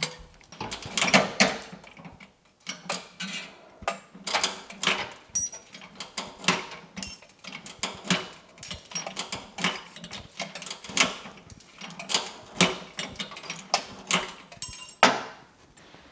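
A 68-year-old DoAll bandsaw blade shear worked by hand on a strip of bimetal bandsaw blade: a quick, irregular run of sharp metallic clicks and clunks from the lever and cutter, stopping about fifteen seconds in.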